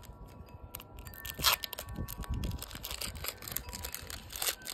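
A foil Pokémon booster pack being torn open by hand, with one sharp rip about a second and a half in, followed by crinkling of the wrapper.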